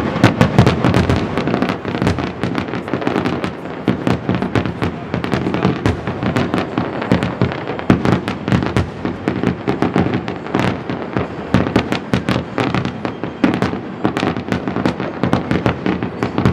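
Fireworks finale: a dense, continuous barrage of firework bursts, many bangs a second, with no pause.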